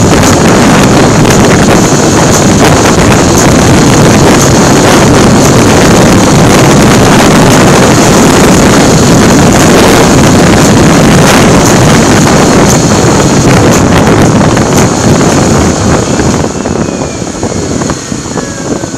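Heavy wind rush buffeting the microphone while riding a motorcycle at speed, with the bike's running noise underneath. The rush eases near the end as the bike slows, with a faint falling whine.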